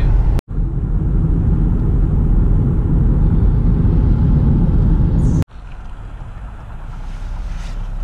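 Steady low rumble of a car on the move, the road and engine noise of driving. It comes in edited clips with abrupt cuts: loud for about five seconds, then quieter after a cut.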